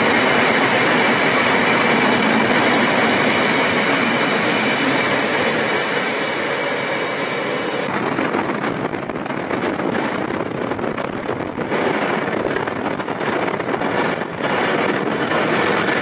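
Freight train of bogie hopper wagons passing close at speed: a loud, steady rush of wheel-on-rail noise. About halfway through it breaks up into an uneven rattle with clicks from the wheels over rail joints.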